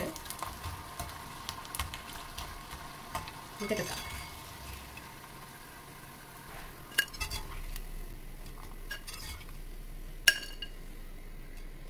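Cornflake-coated idli pieces deep-frying in hot oil with a steady sizzle. A metal slotted spoon stirs them and knocks against the iron pot, with sharp clinks about 7 and 10 seconds in.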